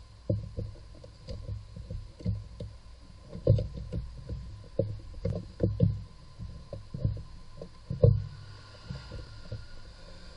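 Irregular knocks and clunks of a socket being worked by hand on a bolt in a car's engine bay, metal tool and plastic parts bumping together. The loudest thump comes about eight seconds in.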